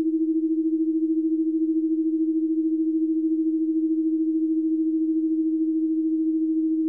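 A steady synthesized pure tone at a low-middle pitch, wobbling quickly and evenly in loudness, the carrier sound of a subliminal audio track.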